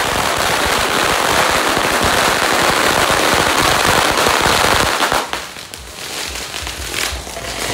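A string of firecrackers going off in a rapid, dense crackle of pops. It thins out about five seconds in, leaving scattered pops.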